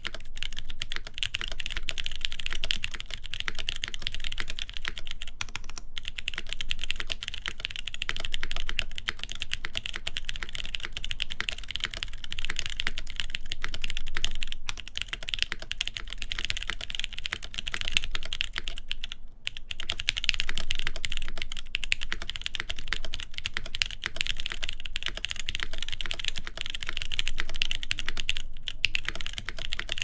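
Continuous fast typing on a Geonworks F2-84 mechanical keyboard with lubed Durock Lilac tactile switches, a full aluminum plate and GMK Red Devils doubleshot ABS keycaps: a dense stream of keystroke clacks with a few brief pauses.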